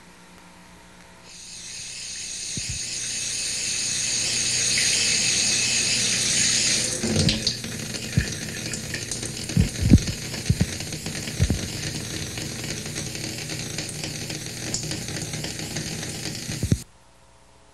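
Water running, a steady hiss that fades in over a few seconds, then continues with several low knocks, and cuts off suddenly near the end.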